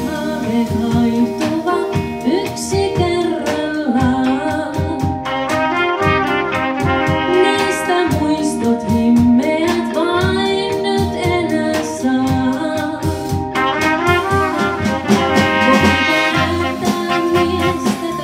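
Big band playing a jazz/swing number, with a brass section and saxophones carrying the melody over a steady rhythm section.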